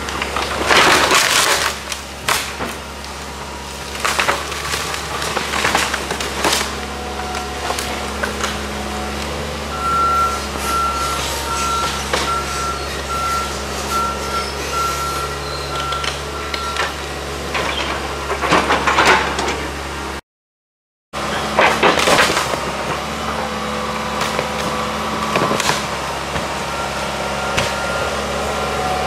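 John Deere excavator running steadily as its grapple bucket tears into and crushes a wood-frame house, with loud cracks and crashes of splintering lumber and debris, the biggest about a second in and again about two-thirds of the way through. A warning alarm beeps about twice a second for several seconds in the middle.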